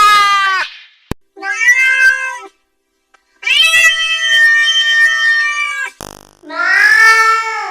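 Angry cat meows played as a string of edited sound-effect variations, each one altered differently: one long meow trails off, a short processed meow follows after a click, then a longer meow and a final one that rises and falls in pitch.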